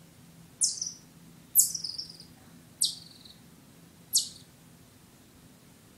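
Chipmunk giving four sharp, high-pitched chip calls about a second apart, each dropping quickly in pitch.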